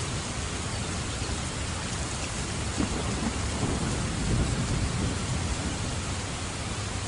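Steady heavy rain hissing, with a low rumble of thunder rolling in about three seconds in and fading over the next few seconds.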